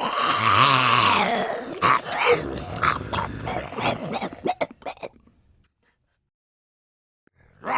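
Zombie sound effect: a long, rough snarling growl followed by a string of short gasping grunts and clicks that die away about five and a half seconds in. After a pause of silence, the next zombie groan begins right at the end.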